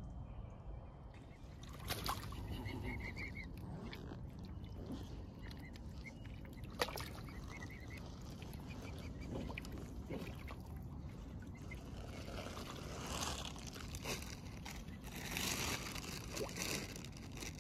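Water sloshing and splashing, with a few sharp splashes and several faint, short, high bird calls.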